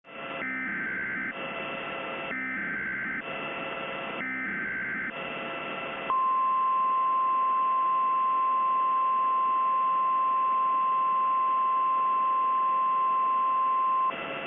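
An emergency alert header: three short buzzing SAME data bursts about a second apart, then the single-pitch 1050 Hz weather-radio warning tone held steady for about eight seconds, over radio static. It marks the start of a new emergency alert broadcast.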